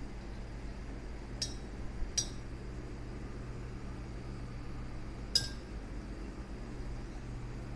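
Three light glass clinks: a pair about a second and a half and two seconds in, then a louder one about five seconds in. They come from the glass bottle of concentrated sulfuric acid being handled while a bottle-top dispenser sits on its neck, over a steady low hum.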